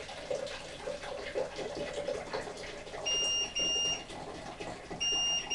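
Hot water poured from a kettle into a pan, splashing steadily. About three seconds in, the electric hob's touch controls start beeping, two short high beeps and then a third near the end, because spilled water is on the touch keys.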